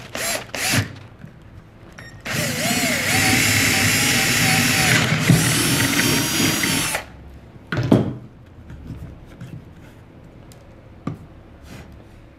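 A Milwaukee cordless drill bores a hole through a wooden lever arm. After a couple of light knocks, the motor runs under load for about five seconds, its whine wavering at first and then holding steady, and stops abruptly. A single knock follows about a second later.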